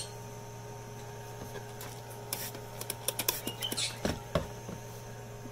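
Light clicks and taps as crested gecko diet is mixed with water into a paste in a small plastic bottle cap. A short hiss from a spray bottle squirting water comes about three and a half seconds in, followed by a couple of soft knocks.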